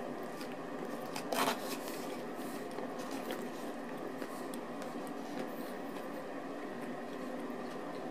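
Soft handling sounds of a saucy breaded-chicken sandwich being held and squeezed, with a short noisy rustle about a second and a half in as the loudest sound, over a steady background hum.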